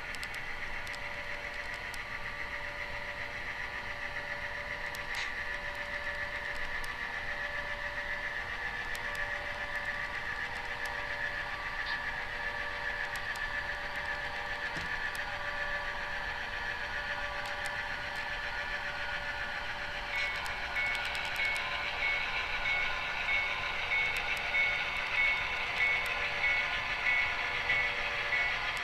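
HO-scale EMD GP9 diesel locomotive model with its sound running: a steady diesel engine drone. About twenty seconds in a bell starts ringing evenly, a little faster than once a second.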